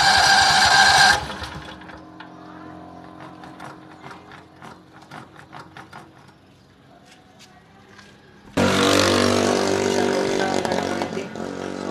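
The electric starter of a Hausmann R12000DP-A 12 kW gasoline generator cranks its twin-cylinder engine with a whine and stops about a second in. A few light clicks follow, then the engine is cranked again from about eight and a half seconds in. It does not start; the repairer finds the spark fine but no gasoline reaching the cylinders.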